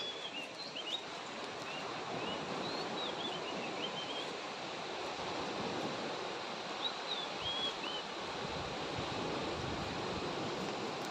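Outdoor nature ambience: a steady rushing noise with small birds chirping over it, the chirps stopping about three seconds before the end.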